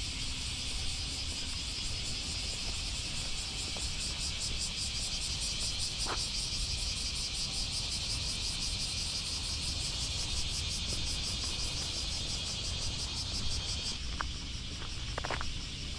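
Summer chorus of cicadas: a dense, steady high shrill with a fast pulsing texture. The chorus changes abruptly near the end.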